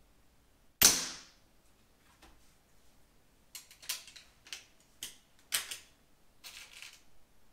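Weihrauch HW97 spring-piston air rifle fired once with its Weihrauch moderator fitted: a single sharp report about a second in, with a brief fading tail. From about halfway on, about six quieter metallic clicks and clacks as the rifle is cocked and reloaded for the next shot.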